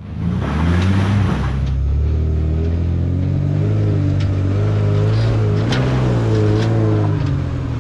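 A truck's engine running under load, its pitch wavering up and down a little, with a few sharp knocks.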